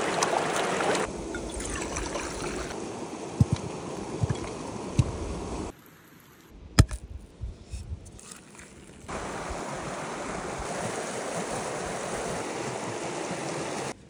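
Mountain stream rushing steadily, louder for a moment near the start as a wooden bowl is dipped into the water, with a few soft knocks. About halfway it drops out for a few seconds of quieter handling sounds with one sharp click, then the steady rushing comes back.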